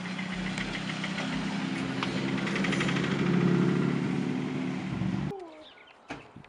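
An engine running steadily, a little louder around the middle, then cut off abruptly about five seconds in; a few faint ticks and short chirps follow.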